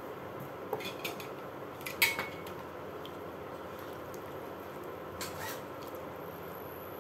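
Silicone spatula stirring broccoli and jicama in a nonstick frying pan: a few short clatters and scrapes against the pan, the loudest about two seconds in, over a steady hiss.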